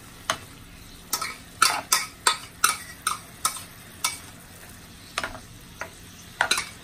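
Chicken pieces sizzling in a nonstick frying pan as a plastic spatula stirs and turns them. The spatula gives irregular sharp taps and scrapes against the pan in two spells, with a short lull between them.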